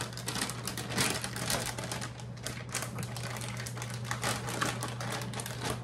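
Crinkly plastic bag being handled and pulled about, giving a rapid, uneven run of small crackles and clicks.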